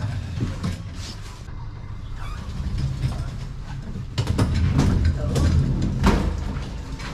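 Elevator car running with a steady low hum; about four seconds in its doors slide open, and a folding hand cart's small wheels knock over the door threshold as it is pulled out.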